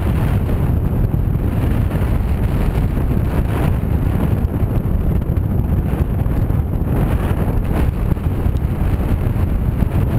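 Wind buffeting the microphone of a camera flying with a paraglider: a deep, steady rush of air with small swells in level.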